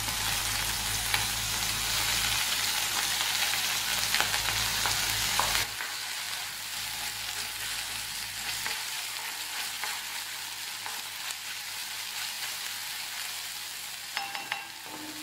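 Chopped garlic and crushed ginger sizzling in hot coconut oil in a kadai: a steady frying hiss that drops in level about six seconds in. Near the end a spatula scrapes a few times as it stirs.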